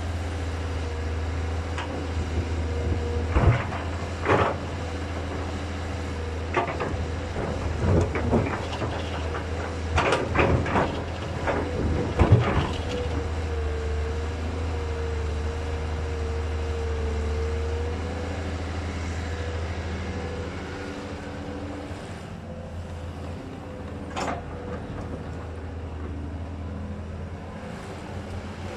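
Kobelco hydraulic excavator's diesel engine running steadily under load, with a low hum and a steady higher tone, while the bucket digs into rocky soil. Clanks and knocks of the bucket and arm come in a cluster through the first half, with one more knock near the end.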